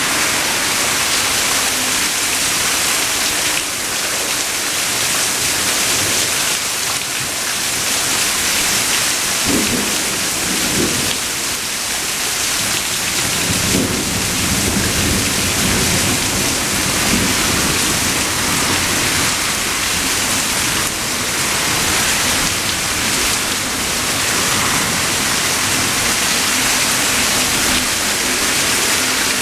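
Steady heavy rain falling, with rolling thunder rumbling about ten seconds in and again for several seconds shortly after.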